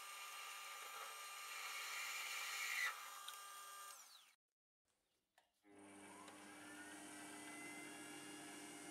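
Optimum metal lathe running while drills are fed into hard steel in its chuck: a steady motor hum that grows a little louder around two to three seconds in as the centre drill cuts. The sound breaks off about four seconds in, then the lathe runs again with a rising whine as the twist drill starts into the hole.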